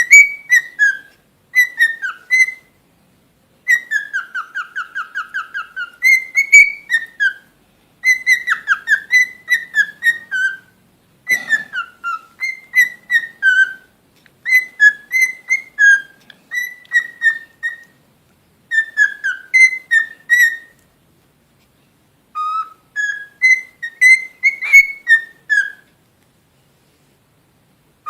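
Cockatiel whistling in phrases of short, clear notes that rise and fall, with a fast warbled trill a few seconds in and brief pauses between phrases.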